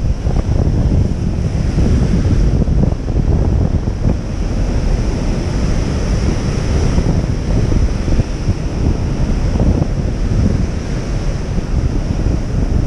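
Heavy Atlantic surf breaking and washing over rocks, with wind buffeting the microphone in a steady low rumble.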